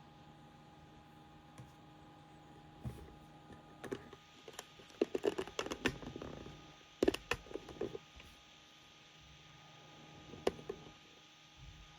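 Typing on a computer keyboard: irregular runs of key clicks, busiest from about four to eight seconds in, with a single click later, over a steady low hum.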